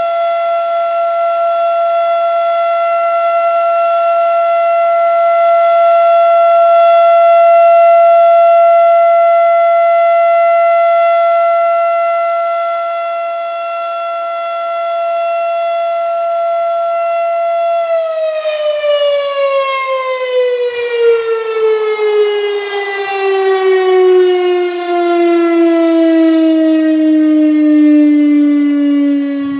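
Federal Signal RSH-10 Thunderbeam electromechanical warning siren sounding a steady full-alert tone, its level swelling and dipping slowly. About two-thirds of the way through the steady tone stops and the siren winds down, its pitch gliding smoothly lower as the rotor slows at the end of the alert.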